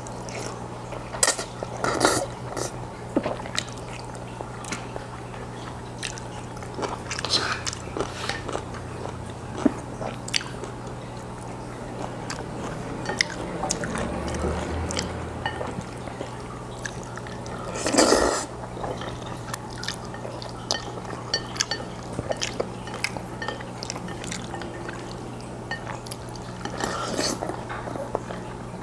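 Close-miked wet mouth sounds of a man eating jjajangmyeon black bean noodles: sticky chewing with many small clicks and smacks, and louder slurps about two seconds in, in the middle and near the end. A steady low electrical hum runs underneath.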